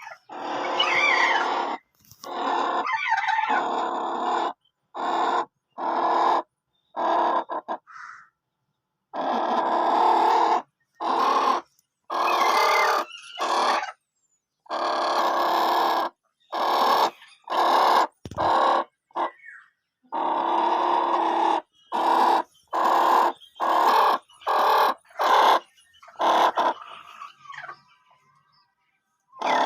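Chickens squawking and cackling in repeated loud bursts, each one cut off abruptly into silence.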